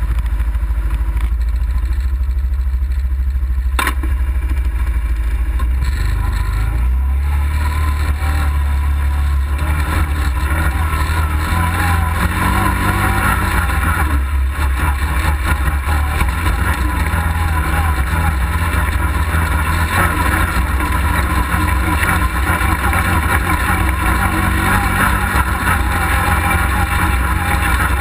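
Dirt bike engine running at low, steady revs while riding slowly over rock, its pitch stepping up a little about seven seconds in and again a few seconds later.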